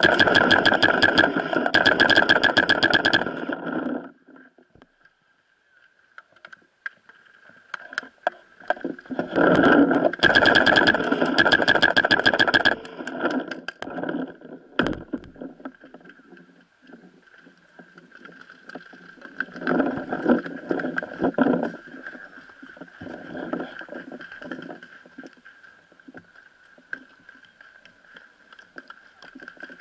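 Paintball marker fired in two long rapid strings, one of about four seconds at the start and another of about three seconds around ten seconds in, with scattered single shots and sharp clicks between and after. A steady high tone runs underneath.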